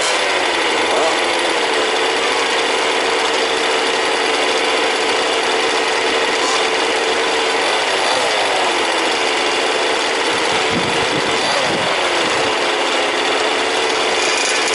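Several 1/5-scale petrol RC cars' small two-stroke engines running together in a steady buzz, with one engine or another revving up and dropping back now and then.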